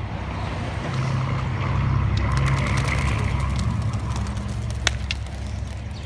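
Pigeons taking off as a flock, their wings clapping and flapping in a quick run of sharp claps for about three seconds, one clap louder than the rest near the end. Under it runs a steady low rumble.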